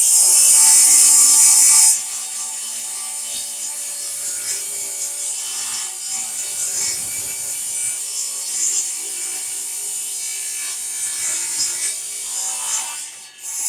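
Corded power saw started up and crosscutting a plywood panel: it comes in suddenly and is loudest for the first two seconds, then runs on steadily through the cut, easing off near the end.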